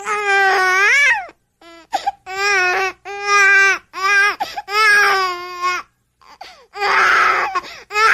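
A baby crying in a string of wails about a second long each. The wails turn harsher and raspier near the end.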